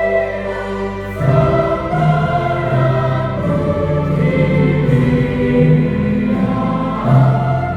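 Church choir singing a Christmas carol in parts, with long held chords; a new, fuller chord with lower voices comes in about a second in.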